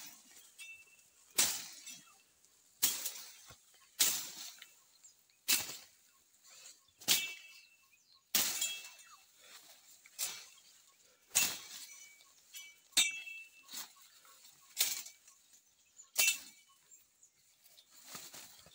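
Footsteps crunching through dry leaf litter and snapping twigs on an overgrown bush path, with a sharp crunch about every second and a half and a light rustle of brushed vegetation between.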